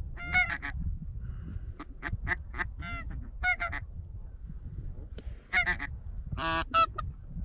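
Greylag goose honking: short clear honks in runs of two to five, coming several times. A steady low wind rumble on the microphone lies underneath.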